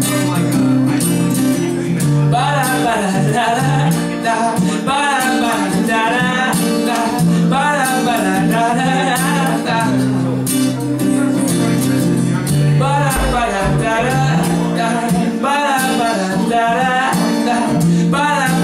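Acoustic guitar strummed live, with a male voice singing over it from about two seconds in.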